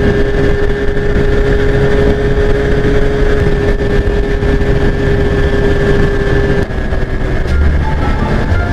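Yamaha SS110 motorcycle engine running at a steady highway cruise, heard from the rider's seat over heavy wind rush on the microphone. The steady engine tone drops away about two-thirds of the way in as the note changes.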